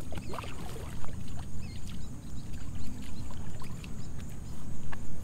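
Lake water splashing and sloshing at the bank as a just-caught fish is released by hand, in several short splashes, the loudest about a second in and near the end, over a steady low rumble.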